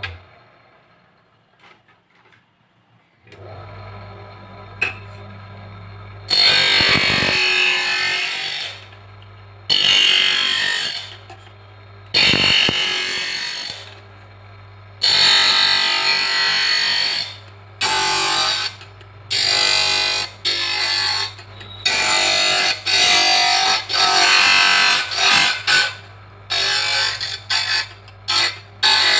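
Hand lens edger grinding a plastic eyeglass lens. The motor's low hum starts about three seconds in. From about six seconds on, the lens is pressed to the spinning wheel in repeated loud, high-pitched grinding passes of one to three seconds each, which get shorter and come faster near the end.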